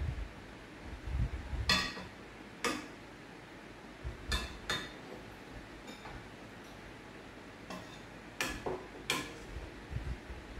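A stainless steel ladle clinking against a metal pot and bowls as chicken is scooped out of the broth and served: several sharp clinks, each ringing briefly, with a few dull low knocks.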